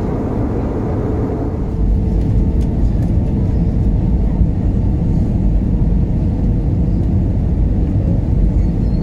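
Airbus A320 cabin noise in flight: a steady low rumble of the engines and the airflow over the fuselage. About two seconds in, it becomes a little louder and duller.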